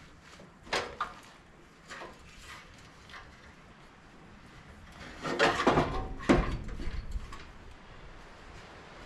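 Hand-work knocks and clatter from parts in the bare metal frame of a John Deere AMT 600 utility vehicle. A few single knocks come in the first three seconds, then a louder run of clattering knocks around five to seven seconds in.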